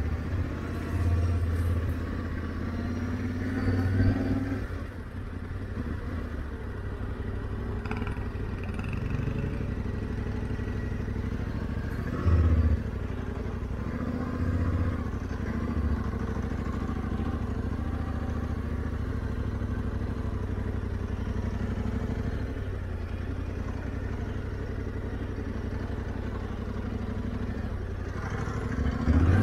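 Motorcycle engine running at low, steady revs while riding off-road, with a few brief throttle openings, the sharpest about twelve seconds in.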